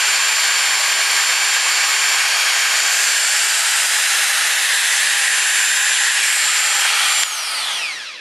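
Dremel rotary tool running at speed with a tiny drill bit chucked in it, a steady high whine, switched off about seven seconds in and falling in pitch as it spins down. The bit is wobbling badly because it is too small for the collet to grip.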